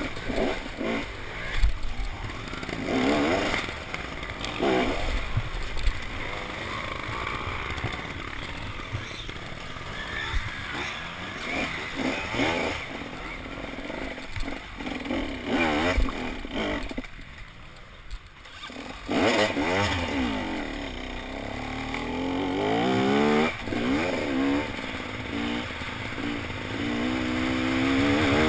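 Dirt bike engine heard from on board, revving up and down over rough trail with knocks and clatter from the ground. It drops back briefly past the middle, then near the end pulls hard, its pitch climbing again and again through the gears.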